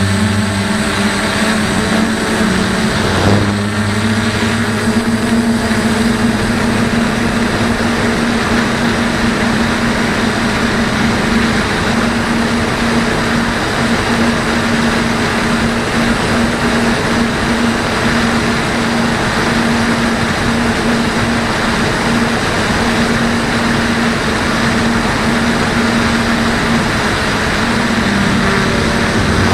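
DJI F450 quadcopter's electric motors and propellers running steadily in flight: a constant hum over rushing air noise, with a brief change in pitch about three seconds in.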